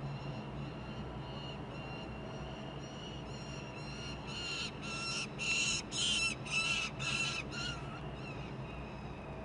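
Juvenile peregrine falcon calling off-camera, a string of short harsh repeated calls about two a second. The calls grow loud for about seven calls in the middle and then fade again as the bird flies past the nest ledge.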